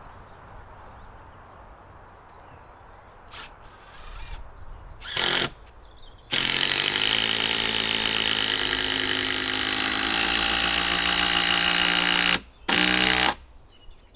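Handheld power driver driving a fastener into a log: a couple of short trigger blips, then one long run of about six seconds whose pitch sags slowly as it works under load, and a last short burst near the end.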